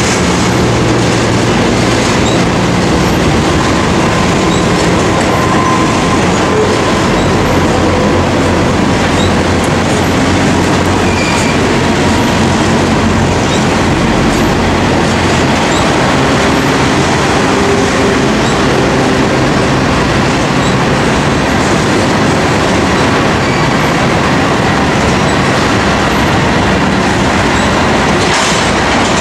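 Freight trains rolling past on adjacent tracks: an intermodal train of trailers on flatcars and a train of covered grain hoppers. Their steel wheels on the rails make a steady, loud rumble and clatter, with a few faint, brief wheel squeals.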